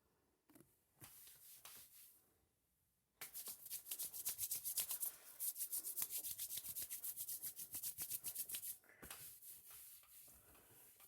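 Rapid rhythmic rubbing or scraping: a few light strokes at first, then a fast, even run of several strokes a second lasting about five seconds, tailing off into weaker strokes.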